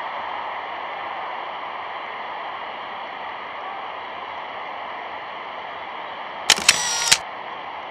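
Camera shutter sound effect: a short, loud mechanical click-and-whir with sharp clicks at its start and end, about two-thirds of a second long, over a steady hiss.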